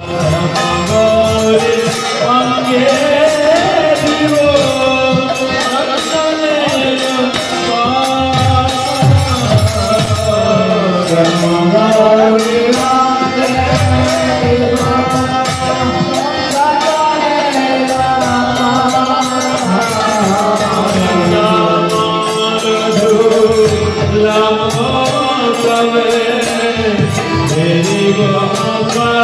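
Devotional kirtan: a man singing a Radha-Krishna song to his own harmonium, with a mridanga drum and a dense, regular beat of high percussion.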